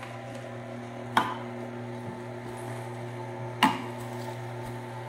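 Electric juicer motor running with a steady hum, with two sharp knocks, one about a second in and one between three and four seconds in.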